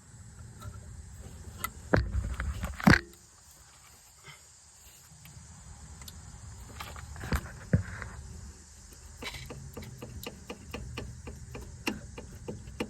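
Small plastic clicks and knocks of hands and pliers working at an ABS wheel speed sensor's electrical connector, pressing its stiff push tab to unplug it. There are a few sharper knocks about 2 and 3 seconds in, and a run of many small, quick clicks in the last few seconds.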